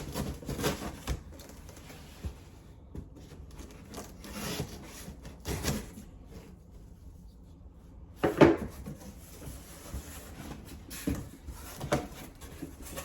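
Cardboard shipping box and packing being handled and opened: scattered scrapes, rubs and light knocks, with the loudest bump about eight seconds in.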